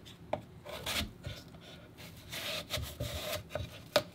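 Kitchen knife cutting through a crisp Granny Smith apple on a wooden cutting board to take out the core and seeds. It makes a short scraping slice a little past the middle and a few sharp knocks of the blade on the board, the loudest near the end.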